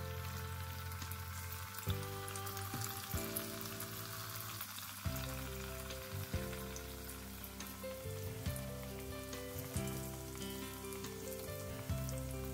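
Yeast-dough krebli frying in hot vegetable oil in a pan, a steady sizzle, under background music.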